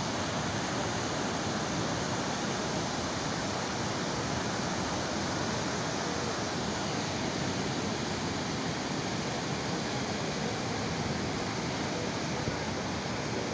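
Muddy flash-flood water from a hill torrent rushing past in a steady, unbroken noise of churning flow.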